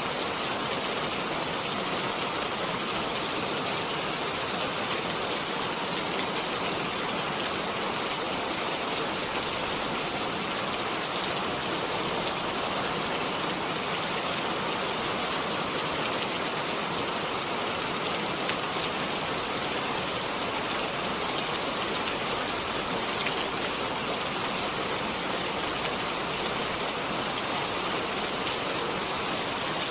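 Steady rain falling, a dense even hiss of drops with fine pattering.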